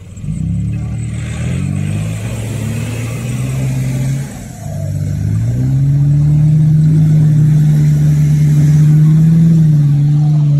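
4x4 engines revving hard under load during a strap tow recovery in deep mud: the pitch climbs just after the start, drops briefly about four seconds in, then climbs again and holds high before easing near the end.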